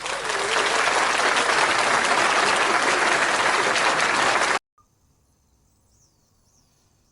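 Food sizzling on a hot pan, a loud, dense crackling hiss that cuts off suddenly about four and a half seconds in. Afterwards a few faint high chirps.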